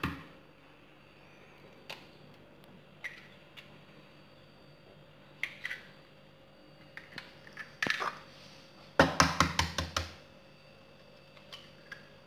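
Eggs being cracked into a glass bowl: scattered light clicks and taps of shell on glass, with a quick run of sharp taps about nine seconds in as the second egg is knocked on the bowl's rim, then faint shell crackling as it is pulled apart.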